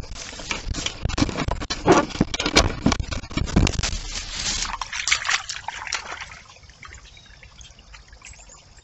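Water splashing and sloshing in a shallow brook at a beaver dam, in quick irregular strokes, loudest over the first six seconds or so, then easing to a quieter trickle.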